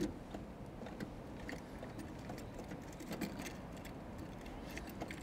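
Faint, scattered clicks and small rattles of a key being worked in the 1964 Cadillac Coupe de Ville's passenger door lock. The lock won't turn to lock the door.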